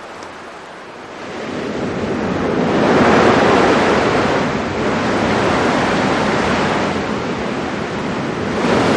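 Surf washing onto a beach, a surge that builds from about a second in, is loudest around three to four seconds, then carries on steadily.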